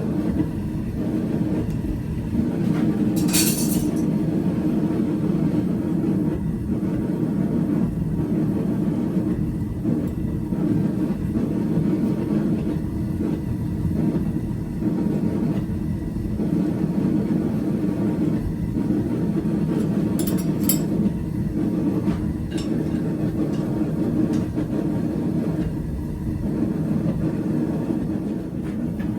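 Steady low roar of a running forge, with a few short, sharp metallic clinks.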